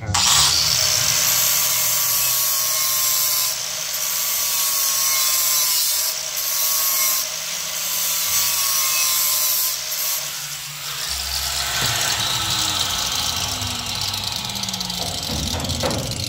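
Handheld corded electric grinder running against metal, loud and continuous, its motor pitch sagging and recovering several times as it is pressed into the work.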